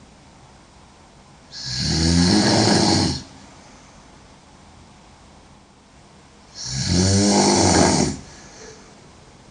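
A woman snoring loudly: two long snores about five seconds apart, each lasting about a second and a half, a low rasp over a breathy hiss.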